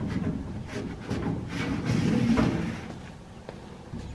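Homemade cover being slid onto a maple syrup evaporator pan, its hooked edges scraping and knocking along the pan's lip in uneven pushes that ease off near the end.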